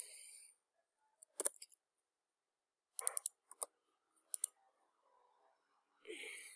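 Scattered sharp clicks of a computer keyboard and mouse while code is edited: a single click, then a quick cluster of several, then a couple more. Two short hissy noises come near the start and near the end.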